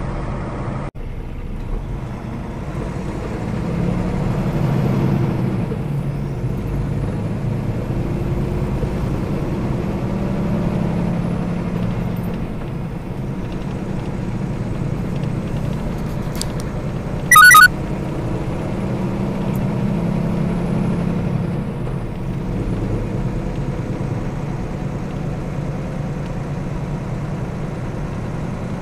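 Steady drone of a semi-truck's diesel engine and road noise, heard inside the cab through a dashcam. About two-thirds of the way in, a short, very loud high-pitched tone sounds for under half a second.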